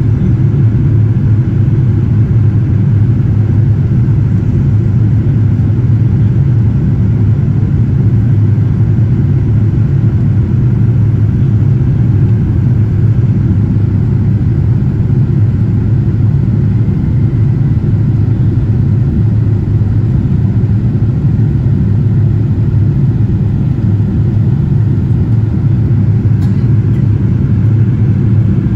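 Cabin noise of a Boeing 787-9 climbing after takeoff, heard from a window seat over the wing: a steady low rumble of the jet engines and the air rushing past the fuselage.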